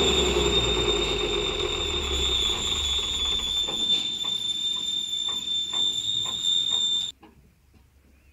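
Someca 1000 tractor running steadily with a high steady whine over the engine, and a string of sharp knocks in the second half. The sound cuts off abruptly about seven seconds in, leaving near silence with a few faint clicks.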